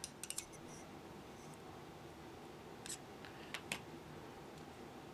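Faint small clicks and ticks of brass photo-etch being bent in a photo-etch bending tool: a quick cluster in the first half-second, then a few more around three to four seconds in.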